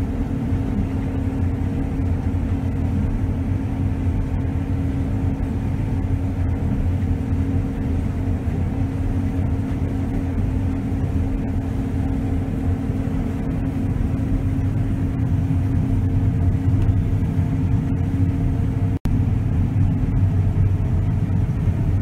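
John Deere S690 combine running while harvesting wheat, heard from inside the cab: a steady low drone with a few constant hum tones. The sound cuts out for an instant near the end.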